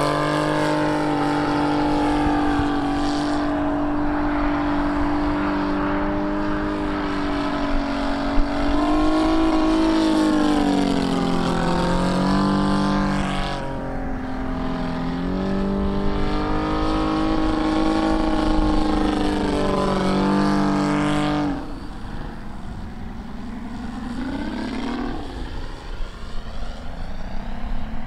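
Engine and propeller of a 1/3-scale radio-controlled Sopwith Pup model biplane in flight, running steadily, its pitch rising and falling as the plane passes and turns. About 21 seconds in the sound drops abruptly to a quieter drone.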